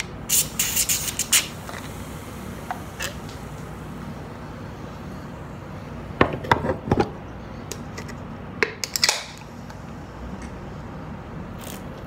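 Knife scraping and puncturing the side of an aluminium soda can to shotgun it, heard as three short clusters of scraping and clicks, each about a second long.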